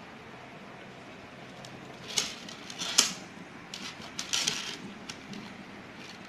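Crystal beads clicking and rattling against a glass bowl in a few short clusters, the sharpest click about three seconds in, over a faint steady hiss.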